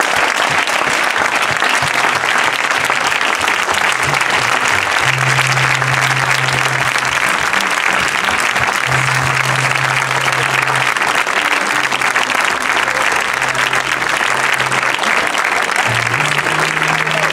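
A crowd applauding steadily, with music and a changing bass line playing underneath.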